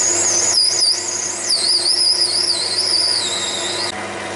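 Metal lathe facing an acetal plug: a high, wavering squeal from the cutting tool over the steady hum of the running lathe. The squeal cuts off about four seconds in.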